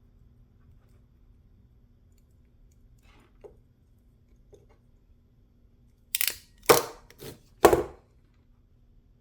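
A hand crimping tool squeezed onto a .156 Molex terminal pin: a couple of faint clicks, then four short, loud strokes in quick succession about six seconds in.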